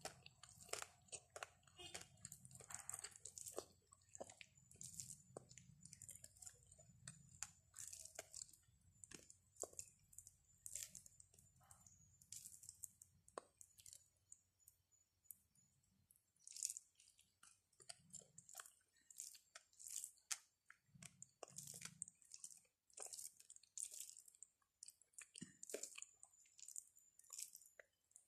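Eating rice and curry by hand: fingers mixing and squeezing rice and curry on a ceramic plate, with chewing. It is faint, a run of many small, irregular clicks and crackles.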